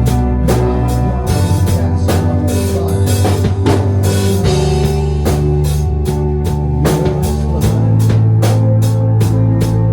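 Rock-style music with a steady drum beat, electric guitar and a bass line that changes note every couple of seconds.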